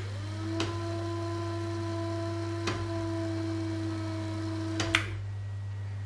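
Home-made milling-machine power feed's electric gear motor switched on with a click, spinning up to a steady whine for about five seconds, then switched off with a click and winding down. There are a couple of light clicks while it runs, and a low mains hum throughout.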